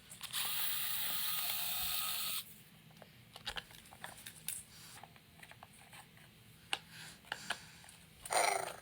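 Small electric precision screwdriver motor running for about two seconds as it drives a tiny screw, then scattered light clicks of the screwdriver and plastic parts being handled. A short louder noise comes near the end.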